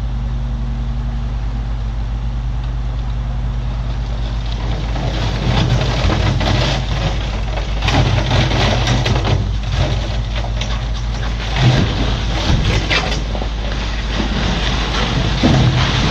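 Heavy diesel machinery running steadily, joined from about five seconds in by repeated irregular bursts of rattling and scraping, with a few sharper knocks.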